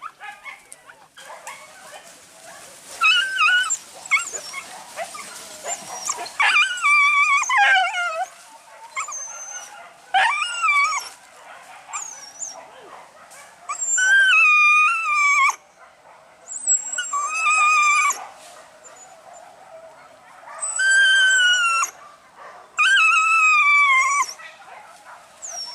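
Hunting dogs giving high-pitched, wavering, drawn-out yelps during a wild boar hunt, in a series of loud bursts of one to two seconds each.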